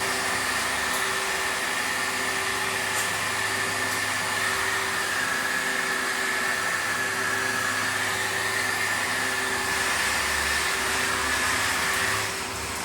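Steady whirring machinery noise with a constant high-pitched whine and an electrical hum underneath, easing slightly near the end.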